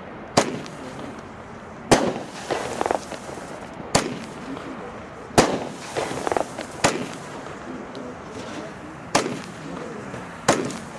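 A fireworks battery firing one shot after another, with a sharp report every one and a half to two seconds, about seven in all. The shells burst in the air as red star bursts, and a crackling haze follows some of the reports.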